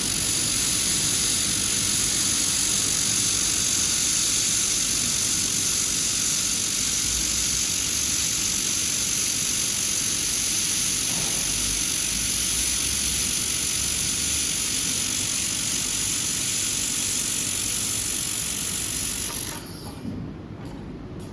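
Handheld laser welding gun welding 3 mm stainless steel under argon shielding gas: a steady hiss with a high whine over it. It starts suddenly, runs unbroken for about 19 seconds and cuts off when the weld ends.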